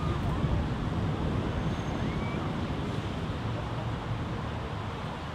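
Outdoor lakeside ambience: a steady rushing background with wind buffeting the microphone, and a few faint brief tones.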